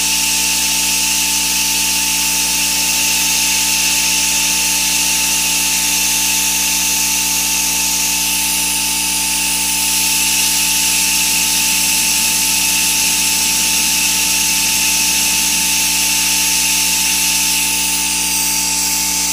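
Grizzly G0704 CNC mill milling steel with a 1/4-inch four-flute solid carbide end mill at 2200 RPM: a steady high whine over a constant hiss from the mist coolant spray. The cutter lifts clear of the cut near the end.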